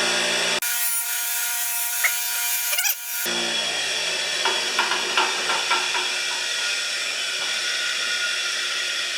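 Power wire wheel spinning with a steady whine while small steel ratchet parts are brushed against it, scratchy rubbing with a few light ticks in the middle.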